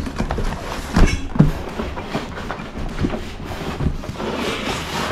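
Cardboard inner tray being pulled out of a kit box's outer sleeve, scraping and rubbing against the cardboard, with a couple of knocks about a second in. The tyres packed inside rub against the box and make the tray drag.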